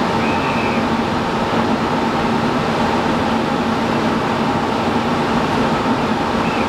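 Steady drone of a ship's machinery and ventilation, with a constant hum, mixed with sea water rushing along the hulls of ships under way. A faint high squeak sounds briefly near the start and again at the very end.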